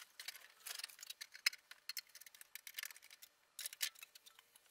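Faint, irregular small clicks, taps and light rattles from hands at work on the oscilloscope and its bench, with no steady sound beneath.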